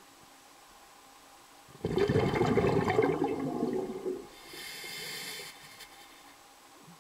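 Water bubbling and gurgling loudly for about two seconds, then a softer hiss lasting about a second.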